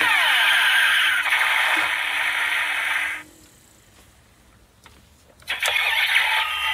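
DX Drive Driver toy belt playing its electronic racing-car engine sound effect through its small speaker after the Type Fruit transformation call: falling whooshes, then a dense revving noise that stops about three seconds in. Another electronic sound effect with sweeping tones starts near the end.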